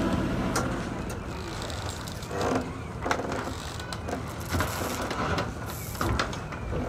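The yacht's engine drone fades out in the first second, giving way to quieter marina sounds: scattered knocks and clicks as people climb down off the stern of a moored sailing yacht and walk on a wooden pontoon, with faint voices.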